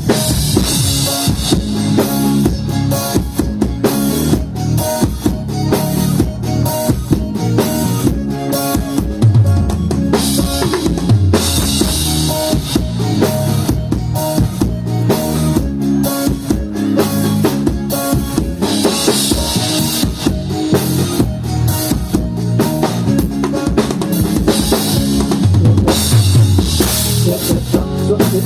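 Live band playing at a soundcheck: a drum kit drives a steady beat with bass drum, snare and cymbals, over pitched bass and guitar lines. Cymbal crashes come in several times.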